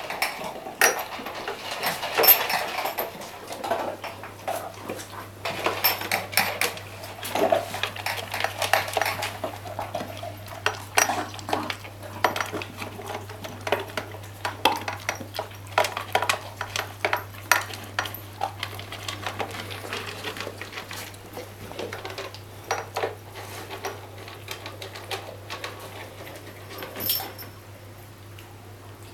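A dog eating from pet food bowls, the bowls clattering and clinking with quick irregular clicks, busier in the first half.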